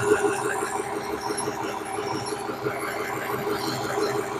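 Doosan 225 excavator running with a steady rapid rattle and vibration from the hydraulic pump drive, sounding as if something is broken. The pump itself proved sound; the rattle was traced to a missing drive flange with broken ends at the pump.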